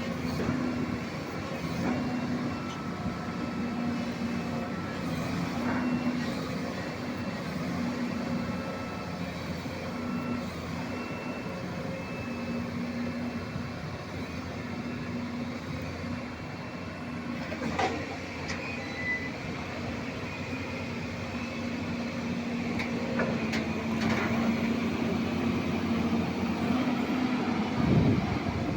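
Excavator's diesel engine running steadily, its note swelling and easing every couple of seconds, with a few sharp metallic knocks and a louder burst near the end.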